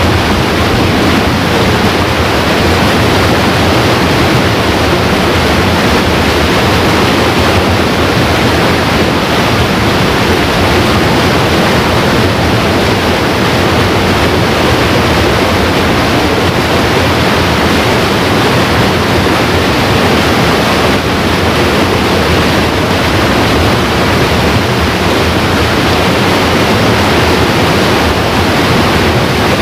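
Steady, even rushing of a flowing river's current, unbroken throughout.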